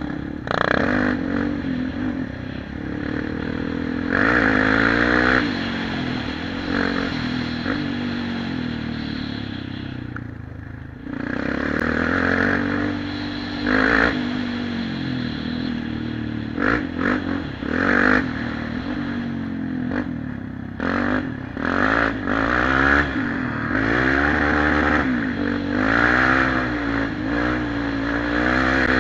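Suzuki LTZ400 quad's single-cylinder four-stroke engine under way, rising and falling in pitch as the throttle is worked, easing off briefly about ten seconds in. Clatter from the quad over a rough gravel track comes through on top.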